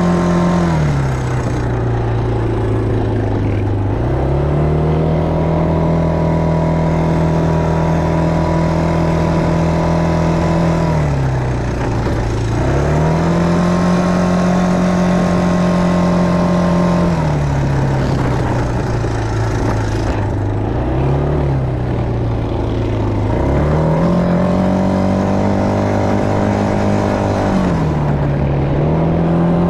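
Quad bike (ATV) engine from the rider's seat, revving up and holding a steady high pitch for several seconds, then dropping back to idle as the throttle is released. The cycle repeats about four times, with the longest low stretch just past the middle.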